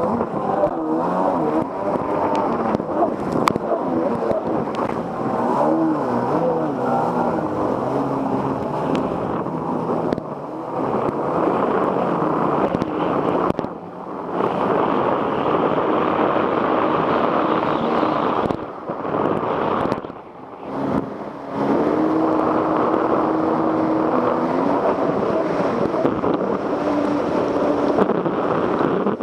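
Jet ski engine running, its pitch rising and falling with the throttle, dropping away briefly twice.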